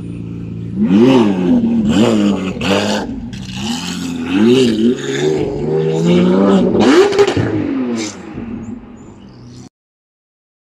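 Supercar engine idling, then revved hard in a run of quick blips, its pitch rising and falling with each one. It fades and stops abruptly near the end.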